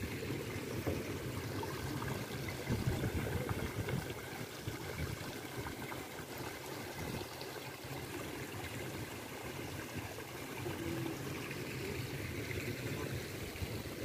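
Shallow water trickling and flowing over pebbles and rocks in a landscaped stream, a steady rushing noise.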